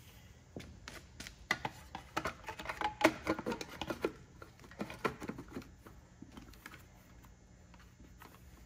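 Distributor cap with its spark plug wires being handled and seated onto the distributor: a scattered run of light plastic clicks and knocks, with the wires rattling, that dies away about five seconds in.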